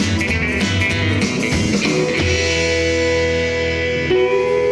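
Rockabilly band playing the closing bars of a song live: electric guitar, bass and drums, then a final chord held and left ringing from about two seconds in.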